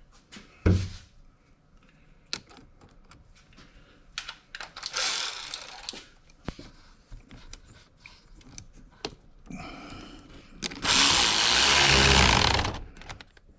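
Sockets and tools clinking and knocking as they are handled. Near the end, a tool runs down the nut on the battery terminal clamp for about two seconds, tightening it.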